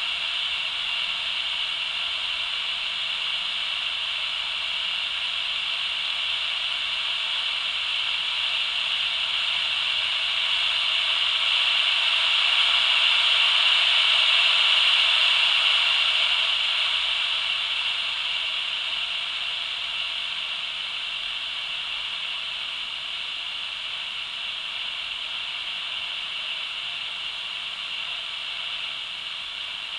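A cheap walkie-talkie's super-regenerative receiver hissing steadily through its small speaker, with no speech coming through. The hiss swells about halfway through, then eases off a little.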